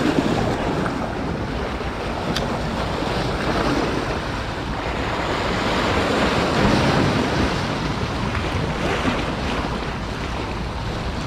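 Sea surf washing and splashing over shoreline rocks, a steady rush of water with wind buffeting the microphone.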